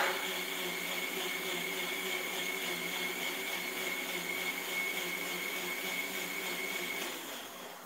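Electric mixer grinder running steadily with a constant high whine, then winding down and stopping about seven seconds in.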